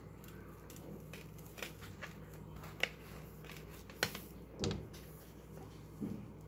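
Crisp grill-toasted bread crackling as a sandwich half is torn apart by hand: a handful of faint, separate sharp crackles over a low room hum.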